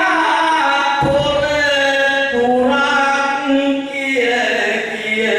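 A man chanting improvised Sinhala kavi verse in long, held melodic lines, with short breaks between the phrases.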